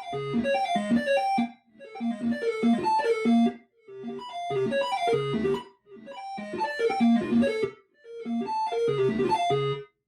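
Moog Subharmonicon analog synthesizer playing a sequenced pattern of short, plucky notes. A phrase of about two seconds repeats five times, with a brief gap between each.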